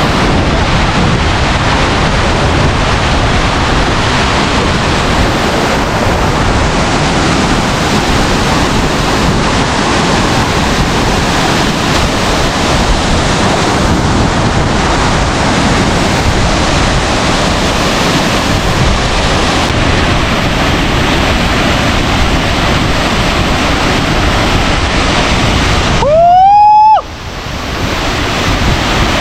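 Large waterfall in full flow after rain: a loud, steady rush of falling water. Near the end the water noise cuts out for about a second under a short, loud rising tone, then fades back in.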